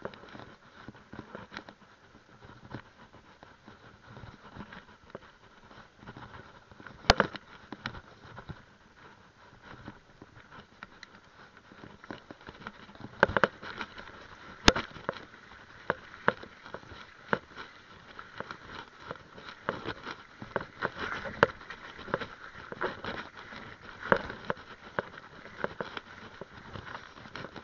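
Mountain bike clattering and rattling over a rough dirt trail, with sharp knocks from bumps throughout, the loudest about 7, 13 and 15 seconds in.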